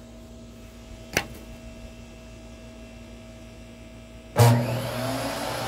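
Faint steady hum with a sharp click about a second in; near the end a benchtop table saw is switched on and its motor spins up with a rising whine.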